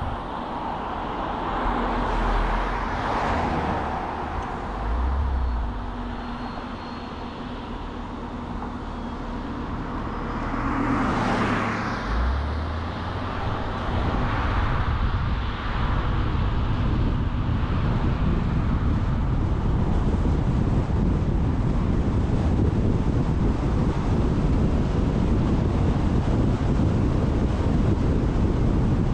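Road and wind noise of a car driving on an open road, with other vehicles swishing past about three seconds in and again around eleven seconds. From about fourteen seconds the low rumble of tyres and wind gets louder and stays steady.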